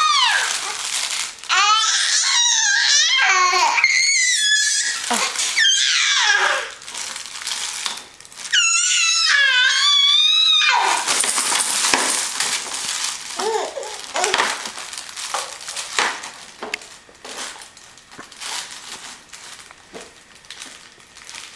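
Five-and-a-half-month-old baby squealing and babbling in high, wavering shrieks for about the first ten seconds, then quieter breathy noises and rustling.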